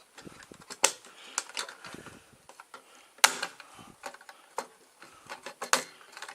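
Sharp plastic clicks and taps as a refrigerator's replacement control board is pushed into its snap-in clips, with three loudest clicks: about a second in, past three seconds, and near the end.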